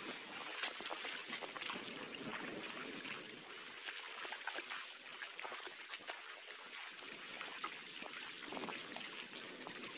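Small waves lapping and washing over rocks and stones at the water's edge, a steady trickling wash dotted with little splashes. A single sharp click sounds about half a second in.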